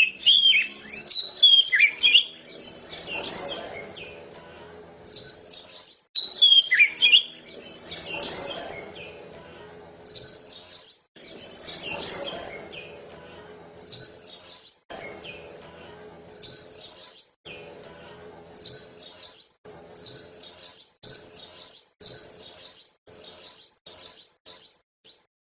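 Oriental magpie-robin (kacer) singing: loud, rapid whistled phrases in the first two seconds and again around six seconds in, then a string of short repeated phrases about once a second.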